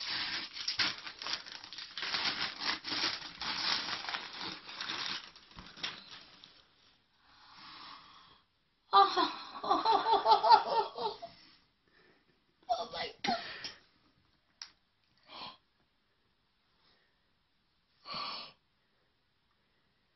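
Christmas wrapping paper rustling and tearing as a present is unwrapped, dense crackling for the first six seconds or so. After that comes a loud, wordless, wavering voice of about two seconds, then a few short breathy voice sounds.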